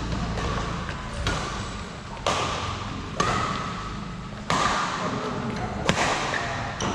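Badminton rackets striking a shuttlecock back and forth in a doubles rally: a sharp crack every second or so, each echoing in a large hall.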